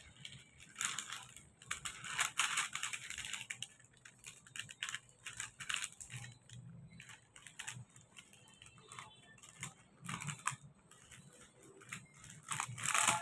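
Thin metallic foil paper crinkling and rustling in irregular bursts as it is folded and pressed flat by hand.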